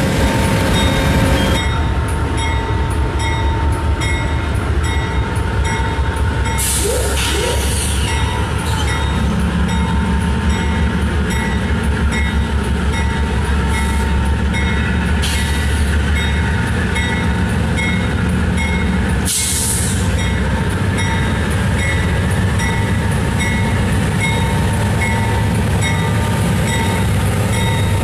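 Amtrak GE Genesis P42DC diesel locomotive's V16 engine running under load as it moves a passenger train along the platform, a steady low rumble whose note thickens about nine seconds in. A few short hisses break in along the way.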